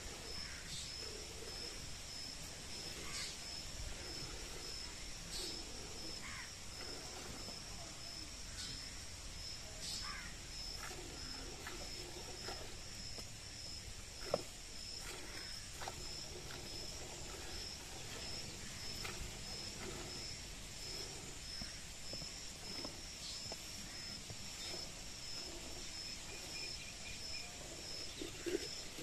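Cow being milked by hand, milk squirting into a steel pail, with a few soft irregular clicks, the sharpest about halfway through. Insects chirp steadily in a high pulsing drone throughout.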